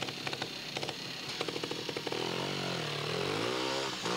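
Two-stroke trials motorcycle engine ticking over with a rapid popping. About two seconds in it is revved up and down for a couple of seconds.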